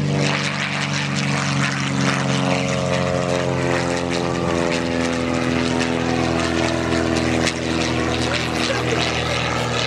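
Zlin Z-142 light aircraft flying past, its Avia M337 inverted six-cylinder engine and propeller running steadily, the pitch sinking slowly as it passes.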